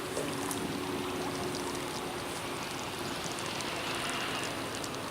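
Steady outdoor background noise with a faint, even hum underneath and scattered light ticks.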